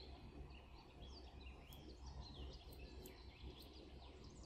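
Near silence: a low steady room hum with faint, scattered high chirps in the background.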